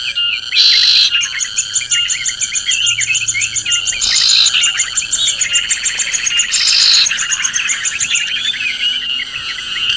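Many birds chirping and calling together in a dense chorus, with a rapid, high-pitched trill through most of the first seven seconds and three short hissing bursts about one, four and seven seconds in.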